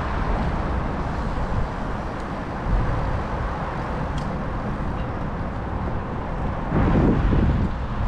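Wind rushing over the microphone of a camera moving at cycling speed along a paved bike path, a steady low rumble with a louder gust about seven seconds in.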